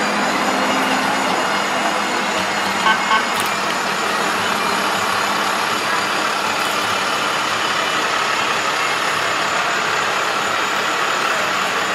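A fire department's Ram 5500 brush truck, with its diesel engine running, drives slowly past in a steady wash of traffic noise. Two short horn toots sound about three seconds in.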